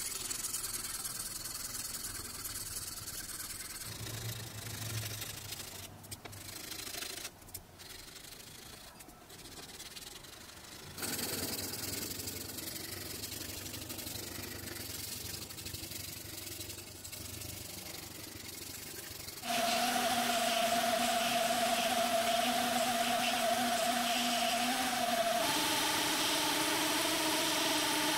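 Sandpaper rubbed by hand over a knife's resin handle scales, a dry scratching. About twenty seconds in, a belt grinder starts running with a steady whine, which steps up in pitch a few seconds before the end.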